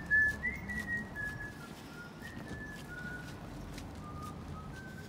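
A person whistling a slow tune: a string of short held notes that step mostly downward in pitch, over a low steady background rumble.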